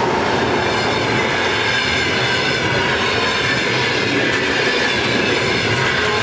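Passenger coaches of a train passing close by at speed: a loud, steady rush of wheels on rails.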